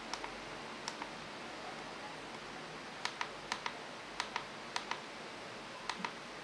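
Keypad buttons on a TC55V CNC controller being pressed: sharp plastic clicks, two near the start, then a quicker run of about ten, often in pairs, from about three seconds in, over a steady low hiss.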